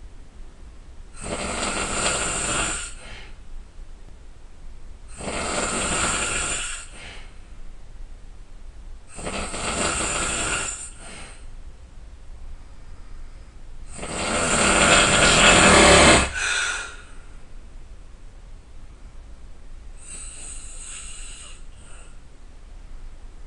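A person snoring loudly, one snore about every four seconds. The fourth snore, about halfway through, is the longest and loudest. A much fainter breath follows a few seconds later.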